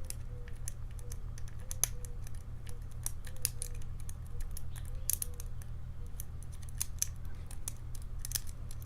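A lock pick and tension wrench working the pins inside a challenge padlock, making small, irregular metallic clicks and scrapes.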